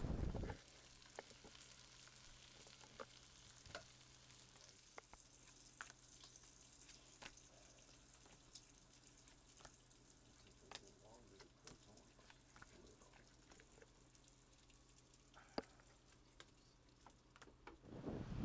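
Near-silent room tone: a faint steady hum with scattered light clicks and taps.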